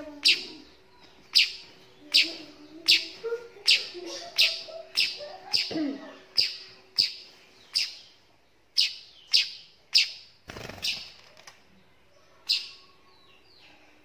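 Weaver bird fledgling (burung manyar) giving short, sharp, high chirps over and over, about one to two a second, with a short pause near the end.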